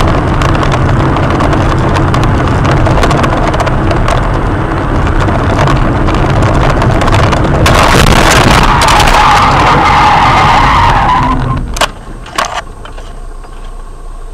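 Car's road and engine noise heard from inside while driving, then from about eight seconds in a loud tyre skid lasting about three and a half seconds. Two sharp knocks follow, and the car goes much quieter.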